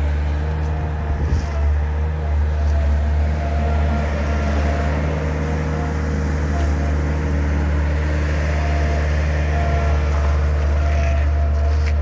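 2003 Bobcat 753 skid steer loader's diesel engine running steadily: a deep, even drone.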